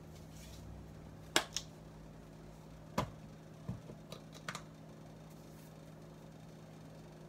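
A handful of sharp clicks and knocks over about three seconds, the loudest about three seconds in, as small spice jars are handled and set down on a kitchen counter, over a steady low hum.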